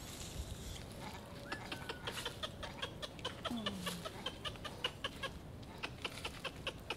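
Rapid clucking chatter of a bird, a fast run of short clicking notes with one low falling note about halfway through.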